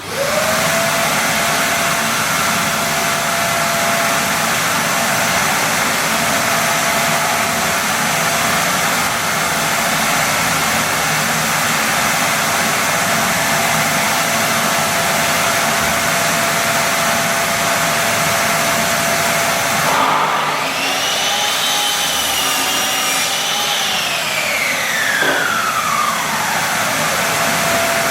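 An electric workshop motor starts up and runs loud and steady with a constant whine. About twenty seconds in, a mitre saw is switched on: its whine rises, holds briefly, then falls away over a few seconds as the blade winds down after a cut.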